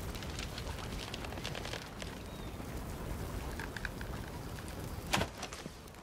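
Light crackling of a burning arrow tip held on a drawn longbow, then a single sharp snap about five seconds in as the bowstring is released and the arrow loosed.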